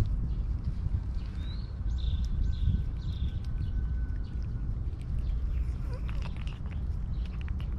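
Cats licking and lapping churu paste from a squeeze tube: small wet clicks, thickest near the end. A bird chirps several times in quick succession about two seconds in, over a low steady rumble.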